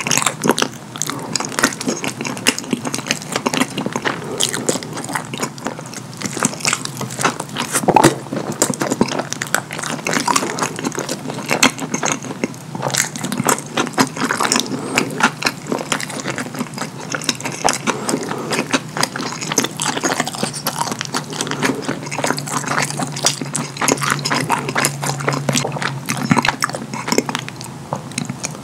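Close-miked eating of a hot dog smothered in chili and cheese sauce: chewing and lip smacking, heard as a dense run of small wet clicks, with one louder click about eight seconds in.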